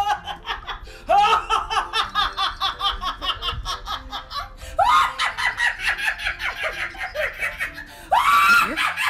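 A woman laughing hard in three long bouts, each starting with a high whoop and running on as a fast string of 'ha' pulses.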